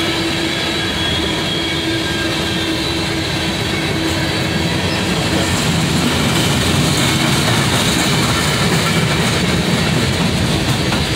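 BNSF freight train of open-top hopper cars rolling past: a steady rumble and rattle of steel wheels on the rails, with a faint squealing tone in the first few seconds.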